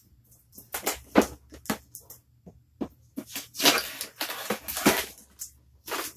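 A cardboard shipping box being cut open with a blade and its flaps pulled up: a string of sharp cardboard crackles and scrapes, with a longer rasping stretch about three and a half seconds in.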